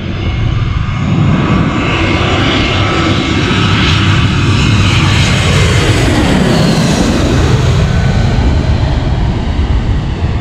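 Twin-engine jet airliner on final approach to land, passing low directly overhead: a loud, continuous jet-engine roar that builds up, is loudest as the plane passes over about six to seven seconds in, then starts to ease off.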